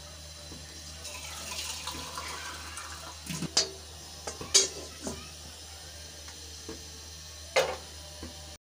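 Wooden spoon stirring a thin, watery liver curry in a pot, with water sloshing and several sharp knocks of the spoon and the lid against the pot, the last a lid set down near the end.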